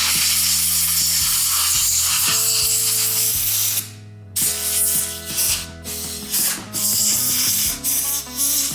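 A steady spray hissing for about four seconds as the outside of a lawn mower carburetor is rinsed off, then a series of short hissing blasts of compressed air blowing it dry.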